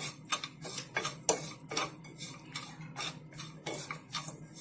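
A spoon scraping and clicking against a pan in quick, irregular strokes, stirring a grated-coconut and sugar filling as the sugar melts.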